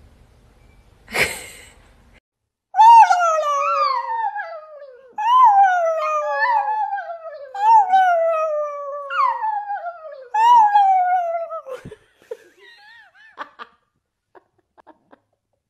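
Chihuahua howling: a run of four or five long howls over about nine seconds, each starting high and sliding down in pitch.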